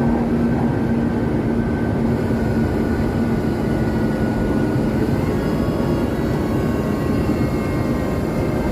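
ČKD Tatra RT8D5M light rail train running, a steady rumble of its wheels and bogies on the track. A low steady hum fades after about three seconds, and a faint high whine comes in about halfway.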